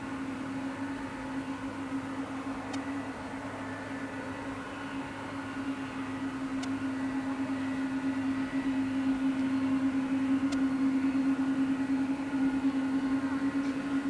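Jet engines of a Boeing 777-200 airliner at low thrust as it rolls slowly on the runway: a steady whine over a low rush, growing louder about halfway through.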